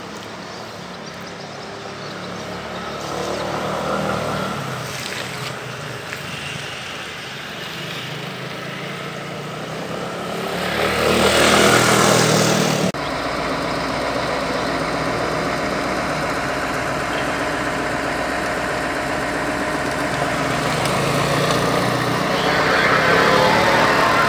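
A maxi-scooter's engine running as it rides past on wet paving. About halfway through it passes close through a puddle, loudest there, with the hiss of tyre spray. Its engine hum carries on steadily after that and swells again near the end.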